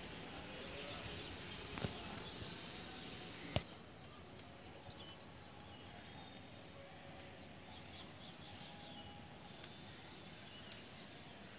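Quiet outdoor ambience with faint, scattered bird chirps, and two sharp clicks in the first few seconds.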